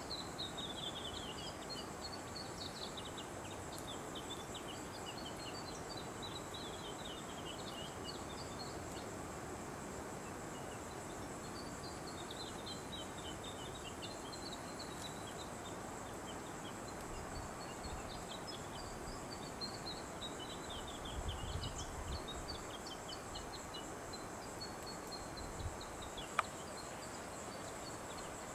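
Bird song: repeated phrases of quick chirps that run downward in pitch, coming every few seconds over a steady high insect drone and a background hiss. A low rumble a little after two-thirds of the way through, and a single sharp click near the end.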